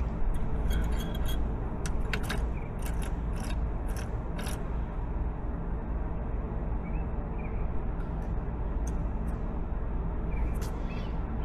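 Scattered sharp metallic clicks and scrapes of hand tools on a Kawasaki Ninja 300's shift lever and linkage as it is adjusted, busiest in the first few seconds and sparser later, over a steady low rumble.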